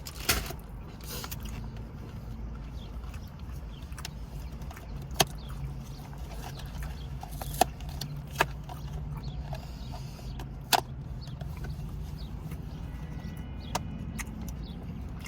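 Steady low mechanical hum, with a few short, sharp clicks and taps spaced irregularly over it.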